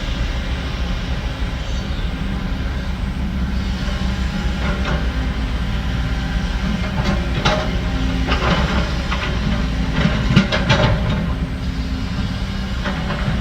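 Heavy diesel earthmoving machinery running steadily, with scattered metallic clanks and scrapes, most of them about seven to eleven seconds in.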